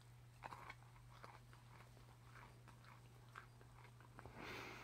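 Faint chewing of peanut M&M candies behind a cloth face mask: a few scattered small crunches, with a soft rush of noise near the end.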